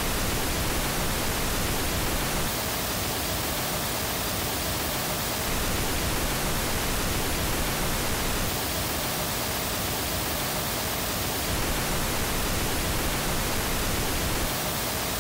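Pink noise test signal, the unprocessed original recording before it is convolved with a loudspeaker's anechoic impulse response: a steady, even hiss across the whole range, with slight shifts in level every few seconds.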